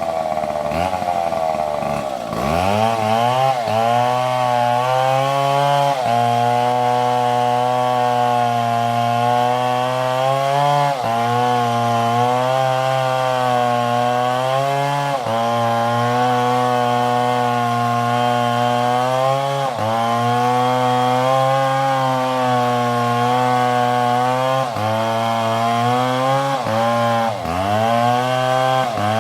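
Large two-stroke chainsaw cutting into a tree trunk. It revs high at first, then bogs down into the cut about two seconds in and runs under load, its engine note sagging and recovering every few seconds as the bar bites into the wood.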